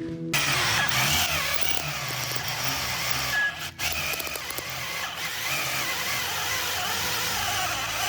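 A power tool cutting into steel under load, starting abruptly, with a brief break about three and a half seconds in.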